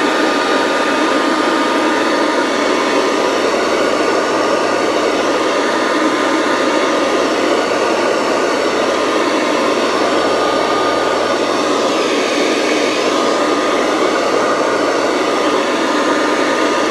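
Kirby Classic III upright vacuum cleaner running steadily at full speed: a broad rush of air with a high, steady motor whine, which begins to wind down at the very end as it is switched off.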